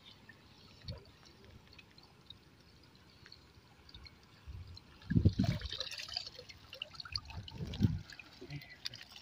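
Shallow river water sloshing and dripping as a mesh net trap full of fish is worked and lifted. Faint at first, then two louder sloshes about five and eight seconds in.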